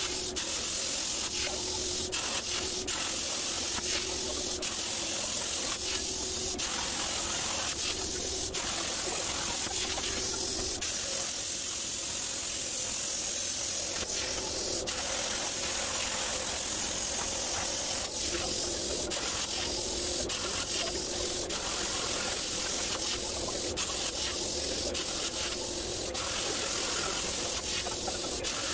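CNC plasma cutter burning through steel plate: a steady hiss of air and arc. It is broken now and then by short stops and sharp clicks as the torch finishes one cut and pierces for the next.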